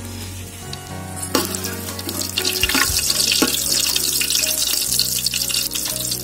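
Bay leaves, fennel seeds and other whole spices sizzling and crackling in hot oil in an aluminium pot. The hiss starts about a second in and holds steady while a steel ladle stirs them.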